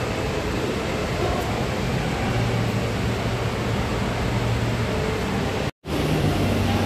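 Steady mechanical hum with a rushing hiss, typical of the ventilation and water-circulation machinery in an aquarium hall. A brief dropout near the end cuts it to silence for a moment.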